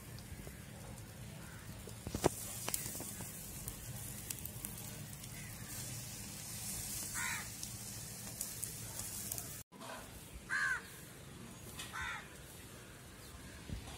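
Marinated whole fish sizzling on a wire grill over an open charcoal and wood fire, with scattered sharp crackles from the fire. A bird calls three short times in the second half.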